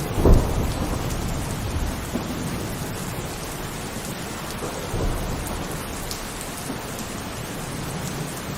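Heavy rain falling steadily, with a thunderclap just after the start that rumbles away over about a second, and a weaker rumble about five seconds in.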